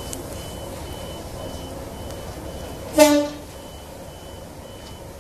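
A train horn gives one short, loud toot about three seconds in. Behind it a faint high beep repeats about twice a second, like a reversing alarm.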